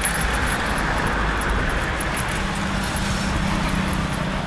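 Steady road traffic noise: a minivan passing on the road, with a low engine hum coming in about halfway through.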